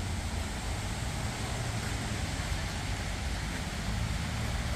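Steady outdoor background noise: a low rumble under an even hiss.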